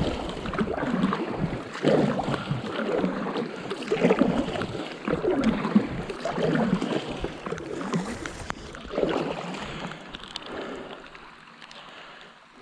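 Paddleboard paddle strokes pulling through calm water, a swish and splash about every one and a half to two seconds, over a soft hiss of light rain. The strokes fade out near the end as the board glides.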